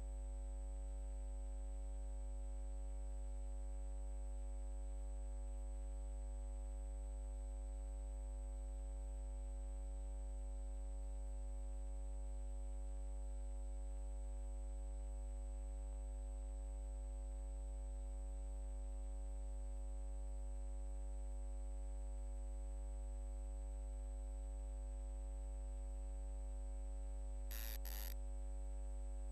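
Steady electrical mains hum and buzz, unchanging throughout, with a thin high whine above it. Two short clicks come close together near the end.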